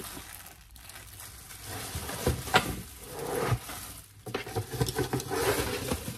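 Cardboard box of a kitchen utensil set being opened and rummaged by hand: irregular rustling and scraping with a couple of sharp taps about two and a half seconds in.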